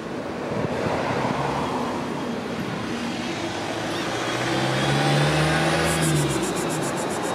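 A car passing on the street: a steady engine hum that grows louder, is strongest about five seconds in, then eases off.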